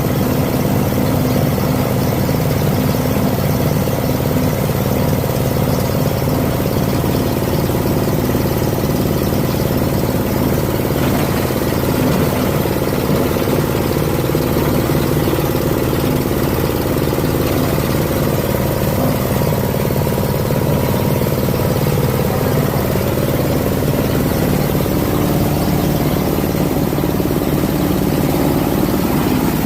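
Cocopeat and palm-bunch grinding machine running steadily, its motor holding a constant pitch with a broad grinding rush above it.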